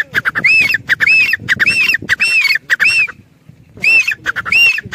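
A female grey francolin (teetar) calling: a loud, rapid series of repeated ringing notes, breaking off about three seconds in and starting again near the end.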